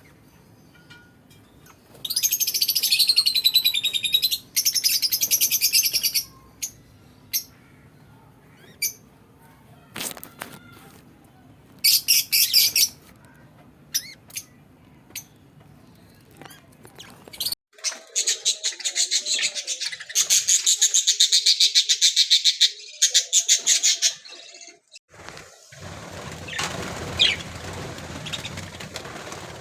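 Budgerigars chattering and chirping in spells of a second or two, with single chirps between them.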